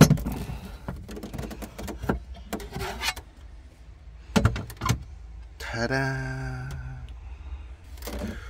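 Handling knocks and light metallic clatter as the metal cover of the BMW X5's spare-wheel well is lifted out and set aside: a loud knock at the start and a couple more around the middle. A man's drawn-out vocal 'hmm' comes in a little past three quarters through.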